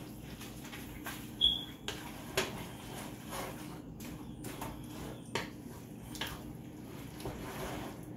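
Metal tongs clicking and scraping against a skillet as lo mein noodles and chicken are tossed together: scattered light knocks, the sharpest a brief ringing clink about a second and a half in, over a steady low hum.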